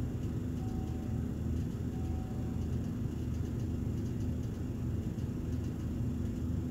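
Steady low rumble with a low hum, and two short faint beeps about a second and a half apart near the start.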